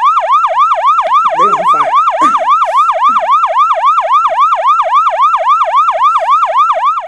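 Siren sound effect in a fast yelp, the pitch sweeping up and down about four times a second, loud and unbroken, cutting off abruptly at the very end.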